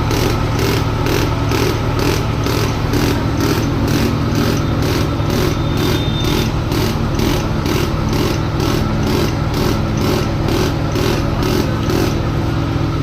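Ashok Leyland Dost diesel engine idling steadily after its fuel pump repair, now that the starting problem is cured. A sharp, regular tick sounds about three times a second over the steady running.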